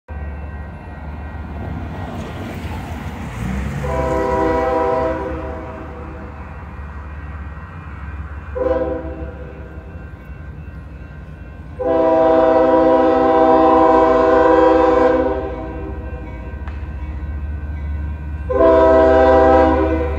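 Union Pacific diesel locomotive's air horn sounding four chords as the train approaches down a street track: a blast of about a second, a quick short toot, a long blast of about three and a half seconds, then another blast of about a second and a half. A steady low rumble runs underneath.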